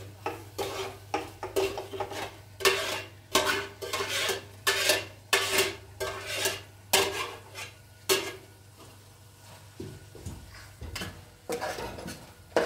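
A metal spoon or utensil scraping and knocking around a metal pot, about two strokes a second, each with a short ring. The strokes pause for a few seconds and start again near the end, over a steady low hum.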